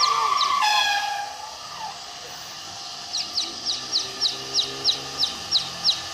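A hen calling, a drawn-out pitched call in the first second. From about three seconds in, a bird chirps a steady run of short, high, falling notes, about three a second.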